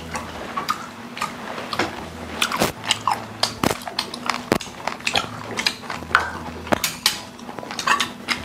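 Close-miked eating: chewing, with frequent sharp clicks of metal chopsticks and a spoon against steel bowls and a stone pot.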